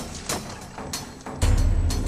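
Background music: sharp percussive hits, with a heavy bass coming in about one and a half seconds in.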